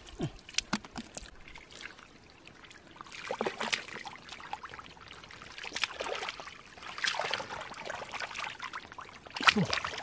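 Hands squelching and splashing through soft wet mud and shallow muddy water, feeling about for fish. It comes in irregular bursts of wet crackling and sloshing with quieter pauses between.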